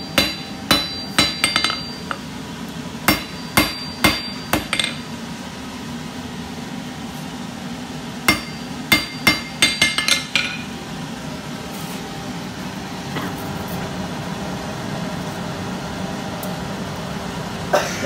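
Hand hammer striking a red-hot steel rod on an anvil in short bursts of blows, about two a second, each with a bright ringing clang, with pauses between bursts. The hammering stops about ten seconds in, leaving a steady low rushing noise.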